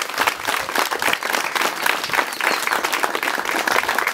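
An audience applauding: many hands clapping together in a steady, dense patter.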